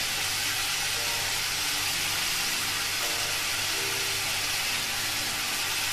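Níscalo mushrooms and garlic frying in olive oil in a pan: a steady sizzle.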